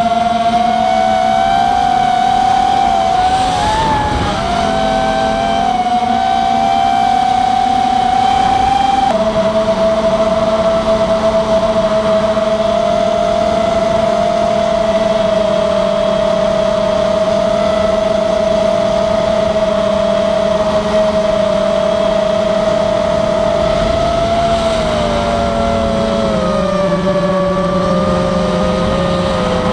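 Diatone 225 FPV racing drone's motors and propellers whining steadily, the pitch wavering slightly with throttle. The tone shifts abruptly about nine seconds in and sags a little lower near the end.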